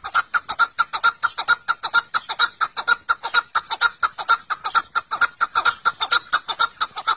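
Chukar partridge calling: a long, rapid run of repeated clucking chuk notes, about five or six a second.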